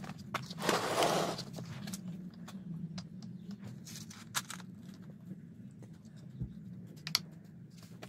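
Hands handling plastic stacking planter pots and drip tubing: scattered light clicks and taps, with a longer rustling scrape about a second in, over a steady low hum.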